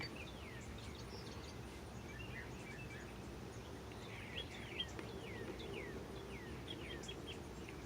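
Small birds chirping faintly: a scattered run of short, high, falling chirps that bunch up in the second half, with a single light tap a little before the 5-second mark.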